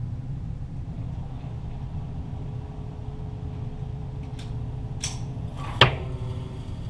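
.22 Walther GSP target pistol shots, heard from the target end of the range: two faint sharp cracks a little past four and at five seconds in, then one much louder crack near six seconds in with a short ring after it. A steady low rumble lies underneath.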